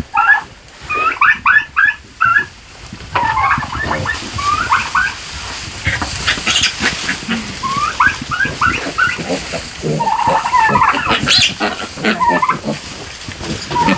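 Piglets squealing in short, rising calls that come in quick clusters of three or four, with louder, harsher squealing about ten to twelve seconds in as a piglet is caught and held.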